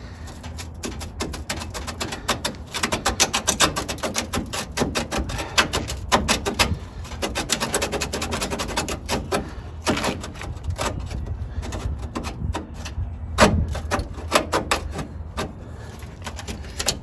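Rapid, irregular metal-on-metal tapping and rattling as a stuck door hinge on a 1936 Chevrolet coupe is worked to slide it out, with one louder knock near the end.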